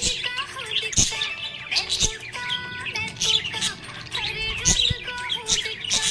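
Budgerigars chirping and warbling: a dense, continuous run of quick chirps, trills and clicks.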